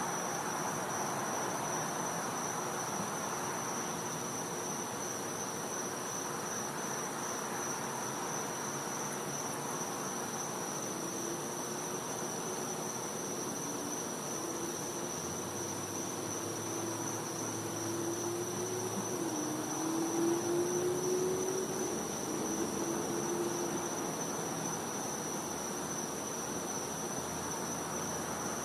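Night insects, which the uploader calls cicadas, keeping up one steady, unbroken high-pitched trill. A faint low hum that wavers in pitch drifts in about a third of the way through, swells a little past the middle and fades out before the end.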